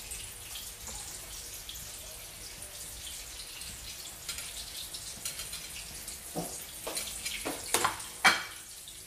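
Eggplant omelet frying in hot oil in a pan: a steady, crackly sizzle. A few sharp clicks and knocks come in the last few seconds, the loudest about eight seconds in.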